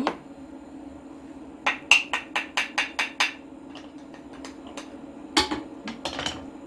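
A wooden spatula knocks and scrapes minced garlic out of a small container into a frying pan: a quick run of about eight sharp taps, then two more a couple of seconds later. A steady hum from the induction hob runs underneath.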